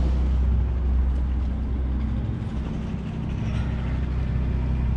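A sailing yacht's inboard engine running steadily at low revs, a deep even hum, as the boat motors astern off a quay.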